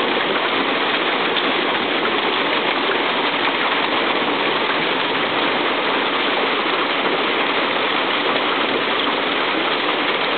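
Heavy hailstorm: hailstones and rain pelting the ground, roofs and trees in a steady, dense patter.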